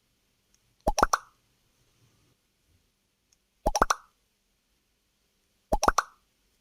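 Facebook 'like' sound effect: a quick run of three or four short pops stepping up in pitch. It plays three times, about two to three seconds apart.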